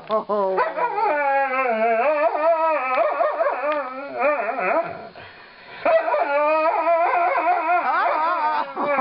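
Alaskan malamute howling and woo-wooing in long, wavering calls that bend up and down in pitch, with a short pause about five seconds in. It is the dog's 'singing' in protest at being brushed.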